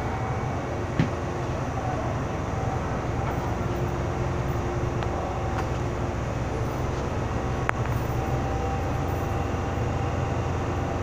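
Steady hum inside a Hong Kong MTR M-Train car standing at a platform with its doors open, from the train's onboard equipment. Two sharp clicks, about a second in and near eight seconds in.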